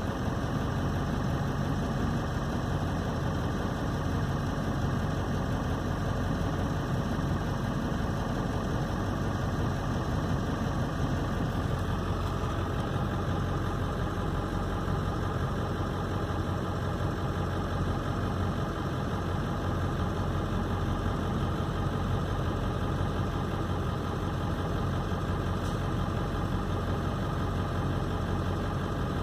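A vehicle engine running steadily at low revs, heard from inside the cab. Its tone shifts slightly about twelve seconds in.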